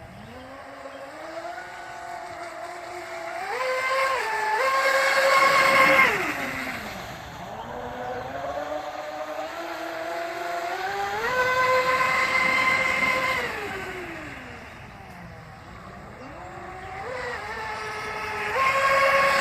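Zonda RC boat's electric motor running on a 5S battery, its whine climbing in pitch as the throttle opens and dropping away as it eases off, three times over.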